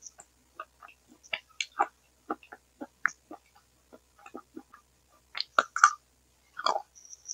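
Close-miked mouth sounds of eating from a spoon: irregular wet smacks and clicks of chewing, a little louder about five and a half seconds in. They are picked up through headphones that were meant for ASMR but transmit the sound badly, giving it what the uploader calls a gurgling, 'dying frog' quality.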